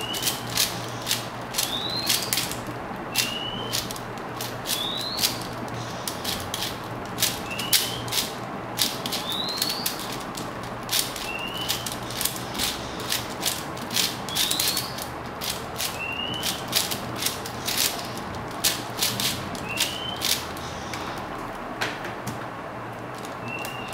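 A plastic 4x4 speed cube being turned fast by hand: a rapid, uneven run of sharp clicks and clacks as its layers snap round, stopping near the end when the cube is set down. A bird's short rising chirp repeats about every second and a half in the background.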